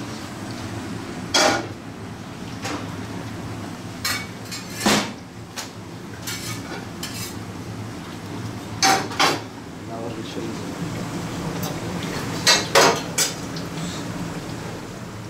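Large aluminium stockpots being handled and set down on a commercial gas range, metal clanking against metal in several sharp knocks, some in quick pairs and threes. A steady low hum of the kitchen runs underneath.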